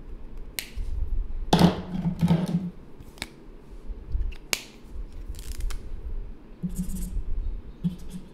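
Drawing supplies such as markers being handled on a desk: a string of sharp clicks and taps and short scraping rustles, the loudest a scrape with a dull thud about two seconds in.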